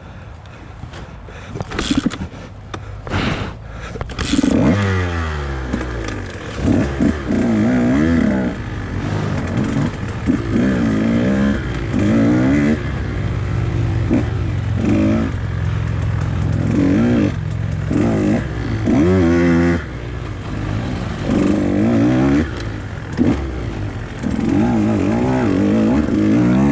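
Two-stroke enduro dirt bike ridden hard, its engine revving up and down again and again with the throttle. The engine builds from quiet over the first few seconds, then rises and falls in pitch every second or two.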